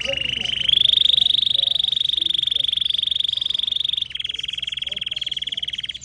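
Domestic canary singing a long run of rapid rolling trills, each held for a second or more. The pitch steps up about a second in and drops back a little about four seconds in.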